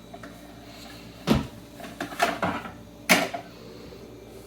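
Kitchen cupboard or drawer and dishes being handled: a few sharp knocks and clatters, the loudest about a second in and another near three seconds.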